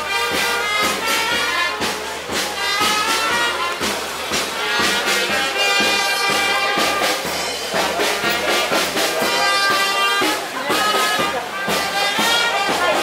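Background music with brass instruments playing a melody over a steady beat.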